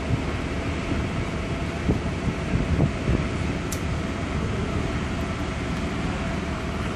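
Steady low rumble and hiss aboard a cruise ship, with a faint steady hum and a few soft low thumps.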